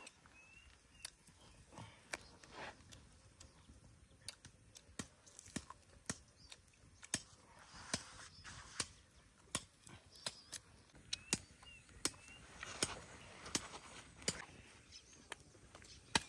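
Irregular sharp knocks or taps, about one or two a second, over faint high chirps.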